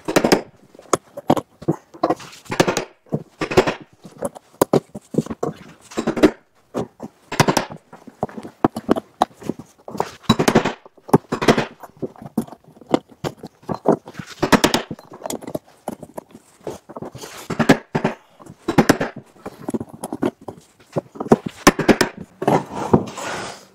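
A hammer striking the staple-setting tool of alligator belt lacing, driving the lacing staples through a rubber conveyor belt: a long series of sharp knocks at an uneven pace, some harder than others.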